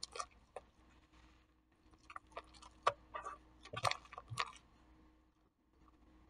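Glue-and-detergent slime being kneaded and stretched by hand, giving faint sticky squelches and pops in short clusters that stop about five seconds in.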